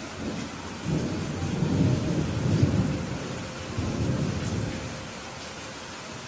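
Steady rain falling, with a low rumble of thunder rolling in about a second in, peaking midway and fading away before the end.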